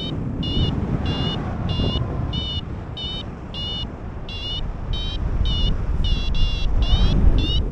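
Smartphone variometer app (FlyMe) sounding its climb tone: a steady run of short rising chirps, about one every 0.6 s and quickening near the end, the paraglider climbing in lift. Loud wind rushing over the microphone from the glider's airspeed underneath.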